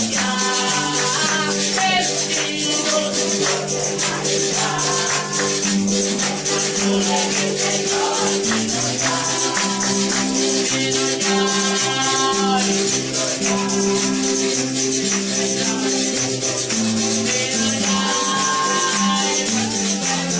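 Church worship song: voices singing over sustained instrument notes, with a tambourine shaken steadily throughout.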